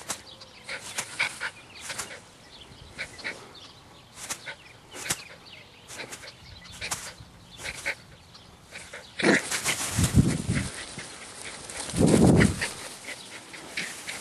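Rat terrier playing, a rapid string of short, sharp huffs and snaps. From about nine seconds in come louder noise and heavy rumbling thumps on the microphone.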